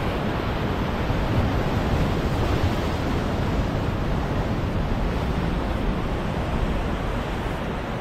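Ocean surf washing and breaking against a rock ledge, a steady rushing wash with no separate crashes, over a low rumble of wind on the microphone.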